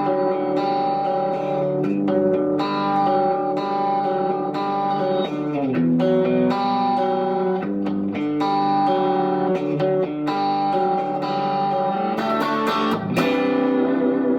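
Reverend Eastsider S electric guitar with single-coil pickups, played through an amp in its Strat-style pickup settings: ringing chords and picked notes, with the pitch sliding down on the notes about five and a half seconds in.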